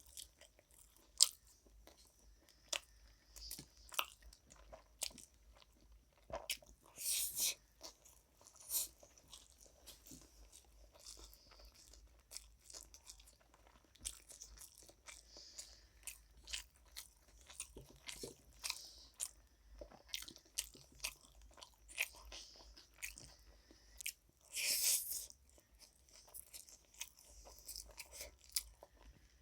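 A person eating close to the microphone: chewing and biting with wet mouth clicks and a few louder crunchy bites, about a third of the way in and again near the end.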